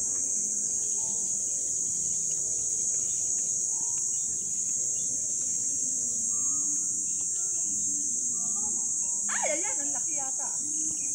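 Steady high-pitched drone of an insect chorus.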